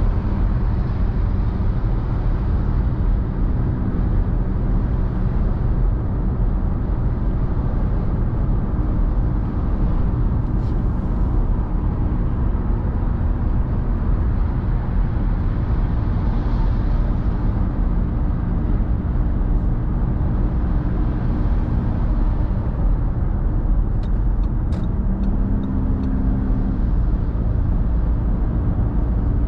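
Steady road noise of a car driving at motorway speed: tyre rumble and wind hiss over a low engine hum. A few faint ticks come in near the end.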